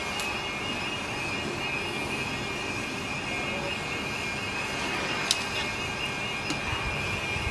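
Saddle tank steam locomotive standing in steam some way off: a steady hiss with a thin high tone over it, and a couple of faint clicks about five and six and a half seconds in.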